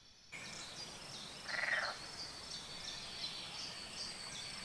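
Grasshopper sound recording with a faint outdoor background: a run of short, high chirps repeating throughout, and one short buzzy rasp about a second and a half in.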